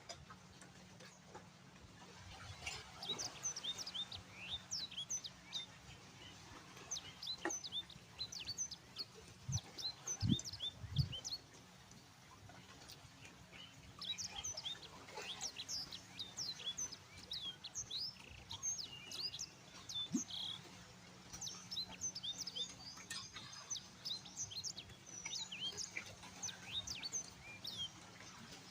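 Birds chirping: rapid, short high chirps in two long bouts, with a brief lull a little before halfway. Two or three low thumps come about a third of the way in.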